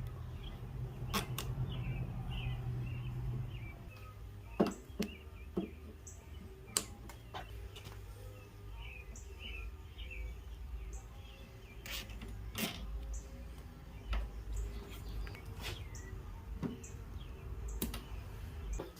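Scattered clicks and taps of hands fastening plastic wire ties around a mower handle to hold the safety cable. Birds chirp faintly in the background, and a low hum stops a few seconds in.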